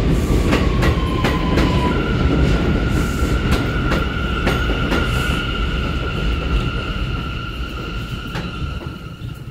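R179 subway train braking to a stop at an elevated station. Its electric propulsion whine falls in pitch, then holds as a steady high tone that cuts off as the train halts. Wheel clicks over the rail joints slow down and fade.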